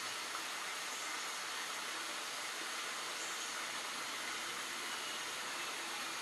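Tropical rainforest ambience: a dense, steady hiss of insects with faint held high tones, and one brief high chirp a little past the middle.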